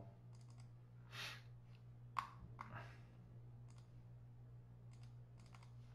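Several faint, scattered computer mouse clicks over a low steady electrical hum.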